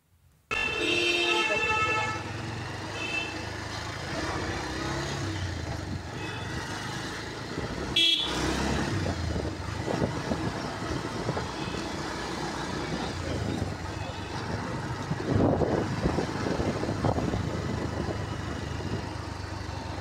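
Riding along a village road on a motorcycle: steady engine and road noise, with a vehicle horn sounding for about a second and a half near the start.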